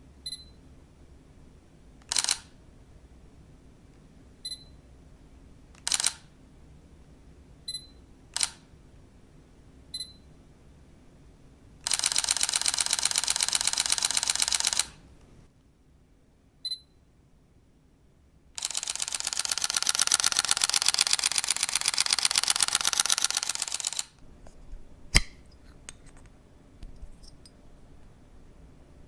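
A camera being operated: short high beeps and single shutter clicks, then two long runs of rapid continuous-shooting shutter clatter, the second a few seconds after the first, and a last sharp click near the end.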